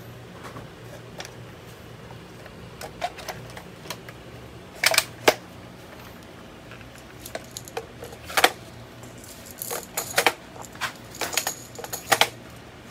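Irregular clicks and clacks of an airsoft MGL six-shot grenade launcher being handled, its revolver cylinder swung open and 40mm grenade shells pushed into the chambers. A few sharper clinks stand out about five, eight, ten and twelve seconds in.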